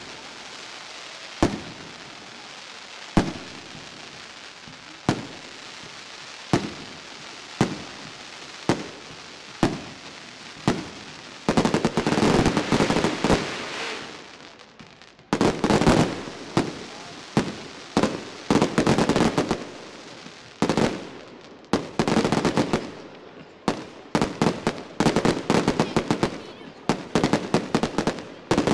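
Aerial fireworks display: single shells bursting with sharp bangs about every one and a half to two seconds. About eleven seconds in, this gives way to dense salvos of many rapid bangs in quick succession, in clusters.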